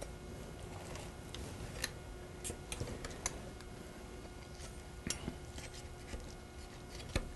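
Faint clicks and light scraping of a steel carving knife and fork working at a roast chicken's wing joint on a wooden cutting board. A handful of small taps are scattered through it, the sharpest near the end.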